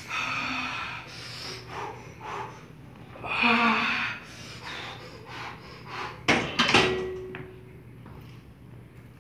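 Heavy, forceful breaths during reps on a Nautilus cable machine, one near the start and one about three and a half seconds in. About two-thirds of the way through, the machine's metal weight-stack plates clank together several times, ending in a brief metallic ring.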